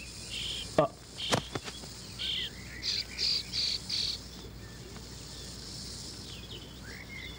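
Background chirping of birds and insects in short bursts, most of them in the first half, with a sharp knock about a second in.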